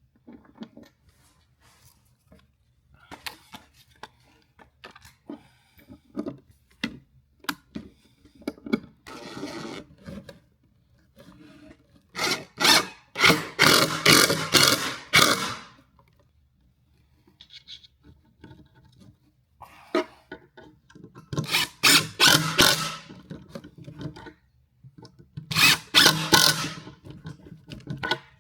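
A drill boring pocket holes into wood through a clamped pocket-hole jig, in three loud bursts of a few seconds each in the second half. Light knocks and handling of the jig and wood come between them.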